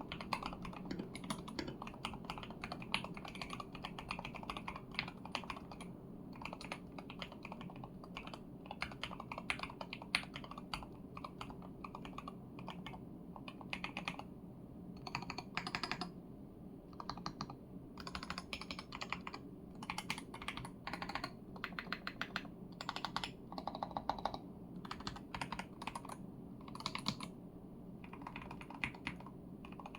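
Budget mechanical keyboard with Milky Yellow linear switches and added case foam being typed on quickly. The key strokes run thick and continuous at first, then come in separate bursts with short pauses in the second half, over a steady low hum.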